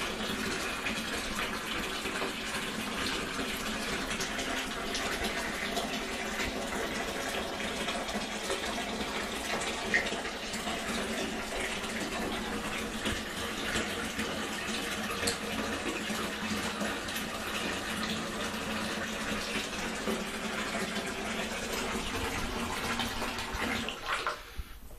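Bath tap running steadily into a tub, with a single light knock about ten seconds in. The water cuts off shortly before the end.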